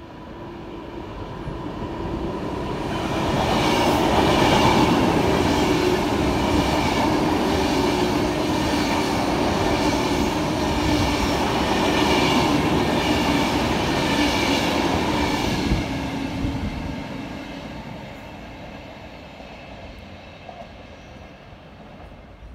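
A Class 390 Pendolino electric train passing along the platform, swelling up, then a long steady rush with a regular clatter of wheels about once a second as the coaches go by, fading away over the last several seconds.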